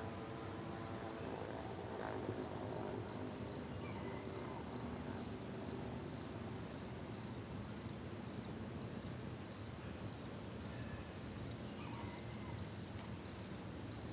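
Crickets chirping: a steady high-pitched trill with a regular chirp repeating about two to three times a second, slowing a little as it goes.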